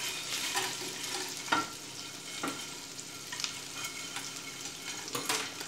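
Butter and olive oil sizzling in a frying pan as dry toasted noodles are laid into it by hand, a steady hiss with scattered crackles.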